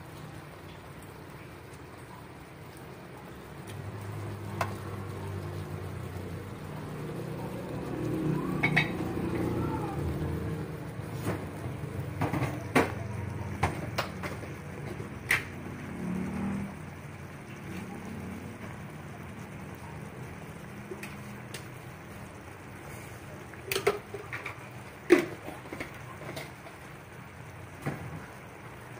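Chicken afritada simmering in a metal wok, a steady low bubbling hiss, with a low rumble swelling between about four and ten seconds in. Over it come a dozen sharp metal clinks and knocks of pot and utensils, the loudest a little before the end.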